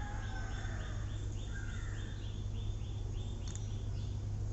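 A run of short, evenly repeated high chirps, about three a second, from a small animal in the background, over a steady low hum.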